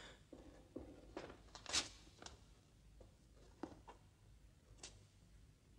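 A quiet room with a few faint, scattered knocks and scuffs, the loudest about two seconds in.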